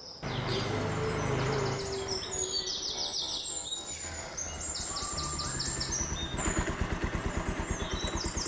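Motorcycle engine running as the bike rolls up slowly, then idling with even low pulses from about six seconds in. Birds chirp in quick repeated high trills throughout.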